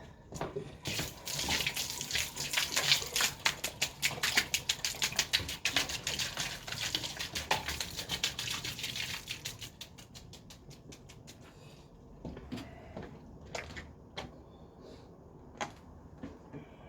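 Water splashing and gurgling in a blocked drain, with a fast patter of clicks. It is strong for about nine seconds, then dies down to scattered knocks.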